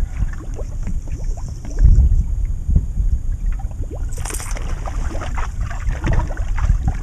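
Wind rumbling on the microphone and small waves lapping against a fishing boat's hull, with scattered small splashes and ticks. A short hiss comes about four seconds in.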